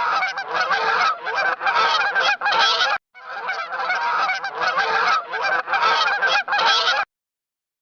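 A flock of geese honking, many calls overlapping, in two stretches of about four seconds with a brief break between them; the calling stops shortly before the end.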